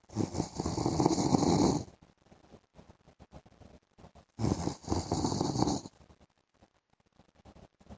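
A man snoring in his sleep: two snores, each about a second and a half long, one right at the start and one about four and a half seconds in, with quiet gaps between.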